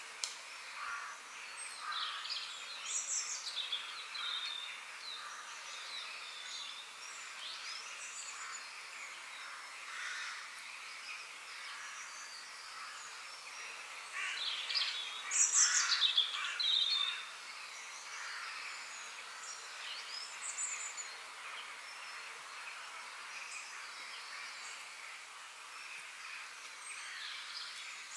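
Birds chirping and calling over a steady background hiss, with a louder, busier run of chirps about halfway through.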